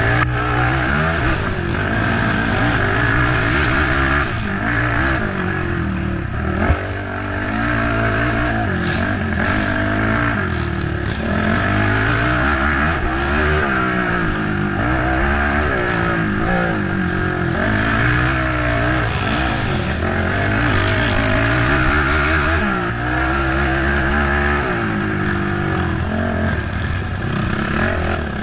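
Race ATV engine revving hard and backing off again and again as the quad is ridden at race pace, pitch climbing and dropping with each burst of throttle and gear change. There is a sharp knock about seven seconds in.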